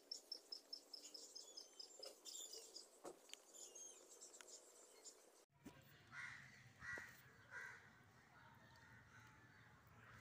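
Near silence: faint outdoor ambience, with a rapid run of high chirps, about five a second, over the first three seconds.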